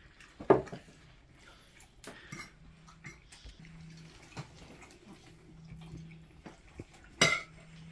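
Spoons and forks clinking against ceramic plates at a meal: two louder clinks, one about half a second in and one near the end, with lighter taps in between over a faint low hum.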